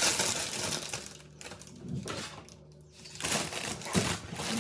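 Rustling and clattering of food packaging and containers being handled, in bursts with short pauses.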